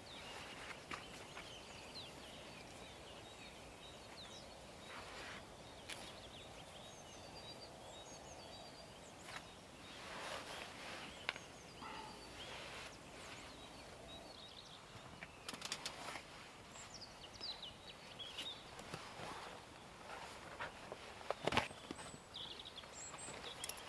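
Faint outdoor ambience with small birds chirping, short high calls now and then, and a few sharp clicks and canvas rustles as the tent's door flap is fastened shut.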